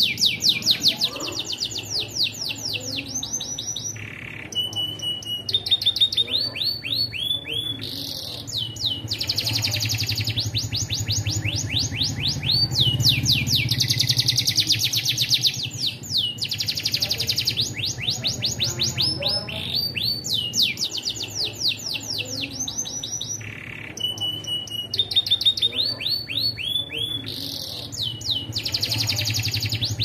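Domestic canary singing a long, nearly non-stop song: fast trills of evenly repeated sweeping notes, one rolling phrase after another with only brief pauses.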